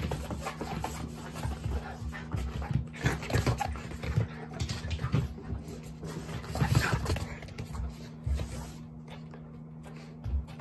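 Jack Russell terrier playing roughly: its hard breathing and growly play noises, with paws scuffling on a carpet, busiest around the middle and quieter near the end.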